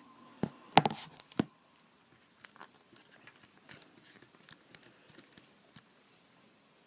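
A few sharp knocks in the first second and a half as a hand-held object is set down on a hard surface, then faint, scattered small taps and clicks of handling.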